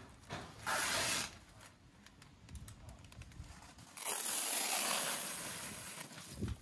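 Plastic wrapping being torn and peeled off rolls of artificial turf. There is a short rip about a second in, then a longer stretch of tearing and rustling film from about four seconds to near the end.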